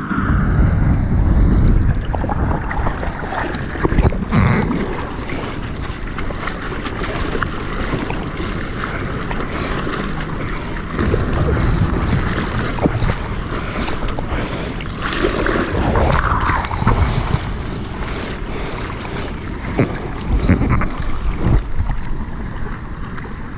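Ocean water sloshing and splashing around a GoPro at the surface, with wind buffeting the microphone and surf breaking on the reef. Heavier splashes come near the start and again about halfway through.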